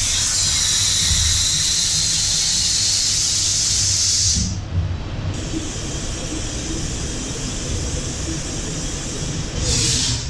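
Okuma MU-10000H five-axis horizontal machining center cutting an engine case: a steady, loud hiss over a low rumble. The sound changes abruptly about four and a half seconds in.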